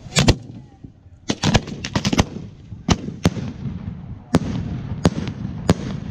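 Consumer fireworks going off: a quick series of sharp bangs, several close together about one to two seconds in, over a steady crackling hiss.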